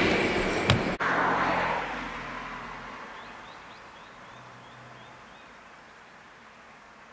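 Rolling noise of a passing train's coaches fading as the train moves away, with a sharp click just under a second in. Then a quieter rumble that fades out over a few seconds, with a few short bird chirps.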